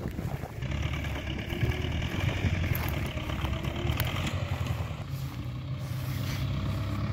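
Diesel engine of a wheeled backhoe tractor running steadily while it levels and clears the ground.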